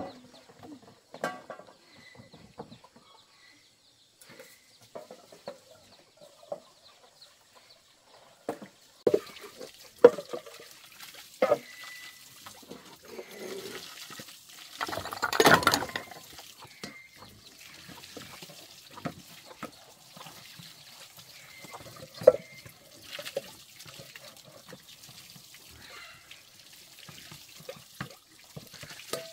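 Water splashing and sloshing in a plastic basin as things are washed by hand, with scattered knocks of pots and bowls; a longer, louder splash about halfway through.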